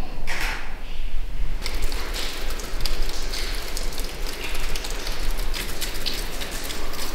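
Water dripping and splashing from leaking pipes onto rock, a dense, irregular patter of many drips a second that sets in about a second and a half in, over a steady low rumble.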